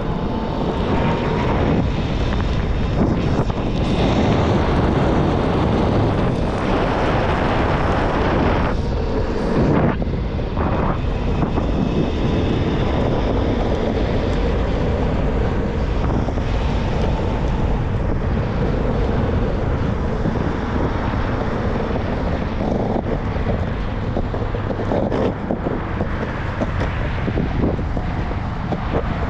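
Wind rushing over the microphone of a rider on a moving electric skateboard, with a steady rumble of wheels and traffic beneath it.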